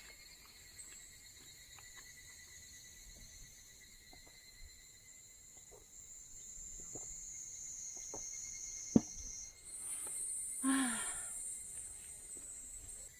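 Insects singing steadily in woodland, a high shrill chorus that swells and shifts higher about nine and a half seconds in. Small scattered clicks and one sharp knock about nine seconds in, then a short sound falling in pitch near the end.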